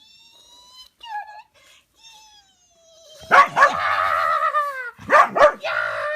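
Dog whining: faint high whines at first, then two loud, drawn-out whines that fall in pitch, one near the middle and one near the end.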